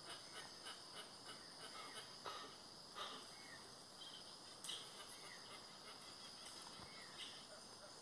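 Faint, steady high-pitched drone of insects, with a few soft short sounds standing out now and then.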